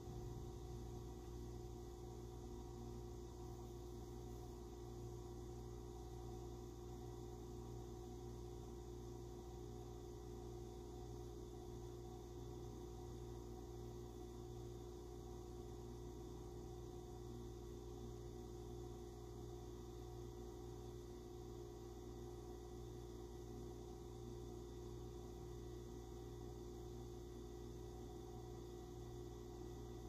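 Faint, steady room tone: a low hum with a few steady tones under light hiss, unchanging throughout.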